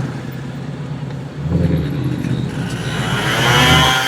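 Clive Sutton CS800 Ford Mustang GT's supercharged V8 heard from inside the cabin while driving, with a whine that rises in pitch through the second half as the car picks up speed.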